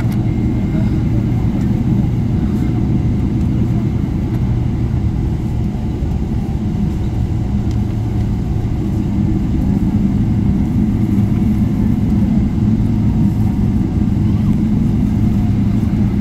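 Steady low rumble of a Boeing 777's jet engines at taxi power, heard from inside the passenger cabin, with a low steady hum in it. It grows slightly louder in the second half.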